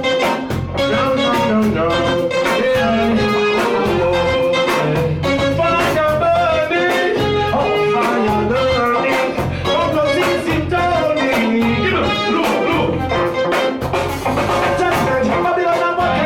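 Live reggae band playing, with a pulsing bass line and a steady drum beat, and a male vocalist singing over it.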